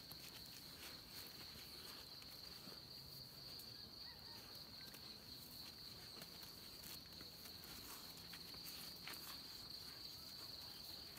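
Faint, steady high-pitched insect chorus of continuous trilling, with scattered soft scuffles from dogs wrestling on dirt.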